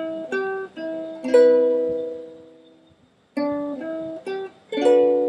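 Ukulele picking a short riff of single plucked notes that ends on a chord left to ring and fade, played twice. The first pass ends on a C major 7 chord and the second on a B minor 7.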